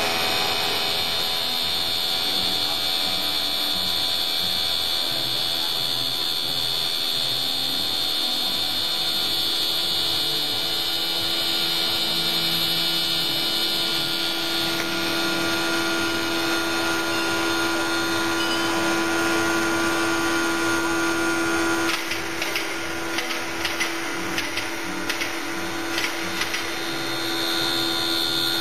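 LK Machinery TT-510P CNC vertical machining center milling a metal part with a small end mill: a steady high-pitched whine over the machine's running noise. About halfway through the whine stops and a lower steady hum takes over; later come a few seconds of light ticks and clicks, and the high whine returns near the end.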